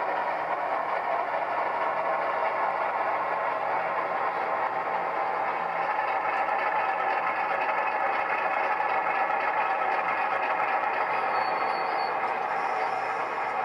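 Diesel engine sound from a DCC sound decoder in an Auscision NSWGR 43 class model locomotive, played through two 25x25x7 mm megabass speakers, running steadily.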